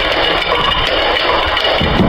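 Many marbles rolling and clattering down a wooden slope over wooden pegs and dropping into a plastic toy truck bed, a dense, continuous rattle.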